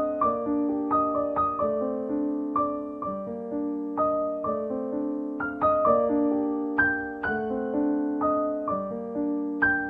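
Background piano music: a calm melody of struck notes, each fading away, over held lower chords.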